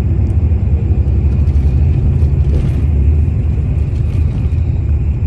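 Steady low rumble of a moving road vehicle, with no distinct events.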